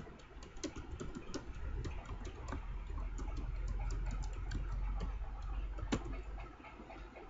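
Computer keyboard typing: irregular keystroke clicks as a terminal command is typed, with one sharper click about six seconds in. A low hum runs underneath and fades near the end.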